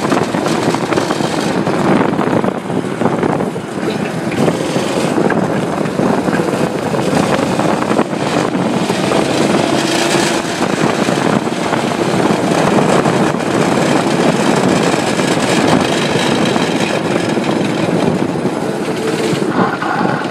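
Manco Terminator go-kart's 5 hp Tecumseh single-cylinder engine running under way as the kart is driven, a loud, steady engine drone.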